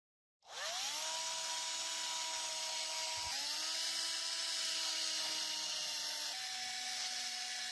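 Small handheld rotary tool with a foam-backed sanding disc, sanding the bare metal of a die-cast model car body. Its motor spins up with a rising whine about half a second in, spins up again around three seconds in, and settles to a slightly lower pitch a little after six seconds, with a steady hiss of the disc on the metal.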